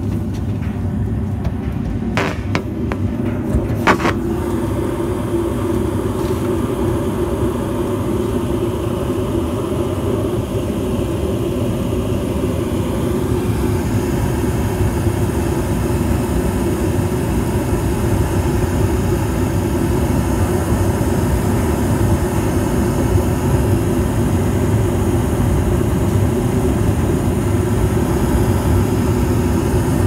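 Evcon/Coleman 80% low-NOx gas furnace running with a steady low rumble. Two brief knocks sound in the first few seconds.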